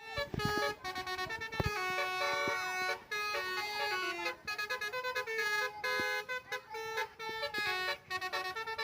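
Basuri telolet multi-tone bus horn playing a tune: several horn tones sound together and step quickly from note to note, with short breaks between phrases.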